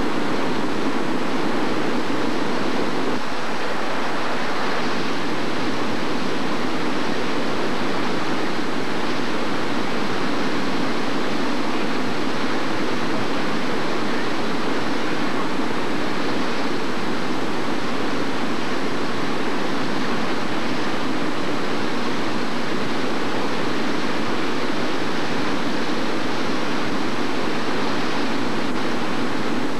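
Fast-flowing floodwater rushing through a flooded wash, a steady, unbroken noise.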